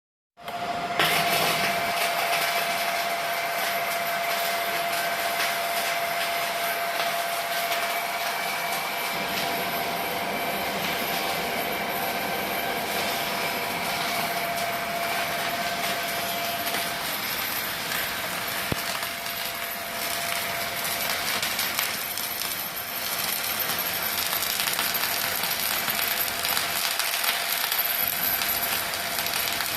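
Welding arc from an ESAB Rebel EMP 215ic welder on carbon steel: a steady, unbroken sizzling hiss that starts suddenly about half a second in.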